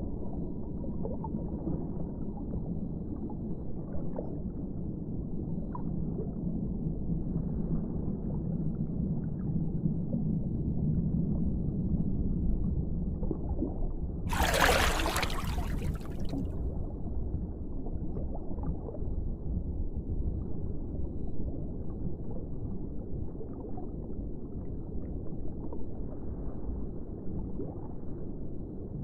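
Muffled underwater-style water ambience: a steady low rumble, with a loud rush of water noise for about two seconds halfway through.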